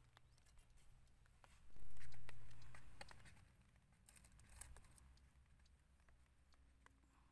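Light, scattered crunches and clicks of bare feet walking on dry, cracked mud crust, with one louder dull thump about two seconds in that fades over a second.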